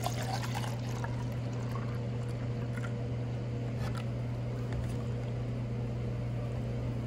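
White vinegar poured from a plastic gallon jug into a plastic measuring cup, a stream of liquid splashing into the filling cup, over a steady low hum.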